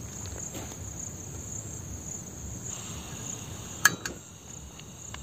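Crickets trilling in one steady, high, even tone, with a single sharp click a little before the end.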